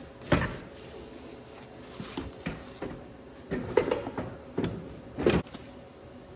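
A series of short knocks and clunks, about six in all, from parts of a compact tractor's pedal assembly being handled and worked into place.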